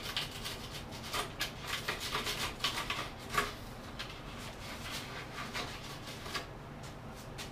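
A pen scraping and scratching in the drilled lip slot of a deer mannequin, clearing out the shavings, in short irregular strokes that die away about six seconds in.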